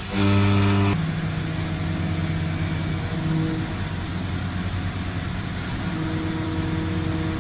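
Machinery running with a steady hum made of a few held tones. A louder buzzing tone at the start cuts off abruptly about a second in.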